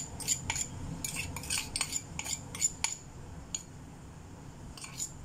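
Wire whisk clinking against the sides of a stainless steel mixing bowl while stirring batter, in quick irregular taps that thin out after about three seconds.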